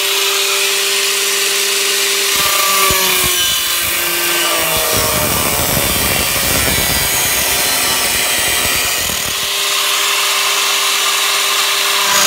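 Angle grinder with a cutoff wheel whining steadily at free speed, then cutting into the car's sheet-steel firewall and parcel tray from about two seconds in, its pitch dropping under the load of the cut. Near the end the wheel comes off the metal and runs free again with the same steady whine.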